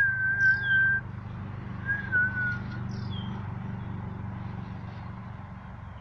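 Two clear whistled notes, the first held steady for about a second, the second shorter, wavering and dropping slightly about two seconds in. A bird gives a short, high, down-slurred call about every three seconds over a steady low rumble.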